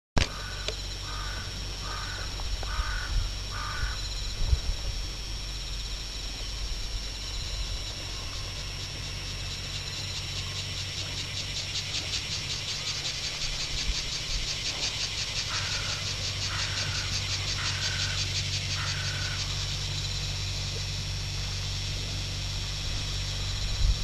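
Outdoor waterside ambience with a steady low rumble and a constant faint high whine, broken by an unseen animal calling in two evenly spaced series: five calls near the start and four more about two-thirds of the way through. A fast, faint, high pulsing trill rises in the middle.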